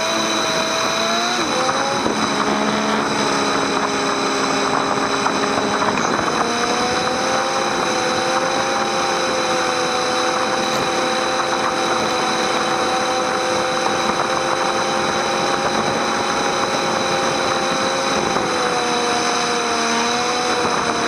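Motorcycle engine pulling away and rising in pitch, dropping at two upshifts about 2 and 6 seconds in, then running at a steady cruise and easing off slightly near the end. A steady rush of wind and wet-road noise runs underneath.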